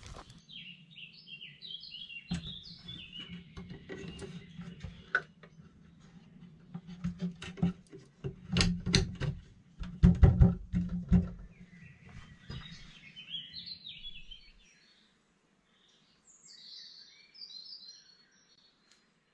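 Small songbirds chirping, once near the start and again in the last few seconds, with a run of irregular knocks and clatters in between that is loudest a little past the middle.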